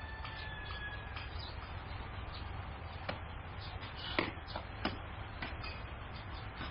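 Steady low hum of outdoor ambience with scattered short clicks and taps, the sharpest two a little after four seconds in and just before five.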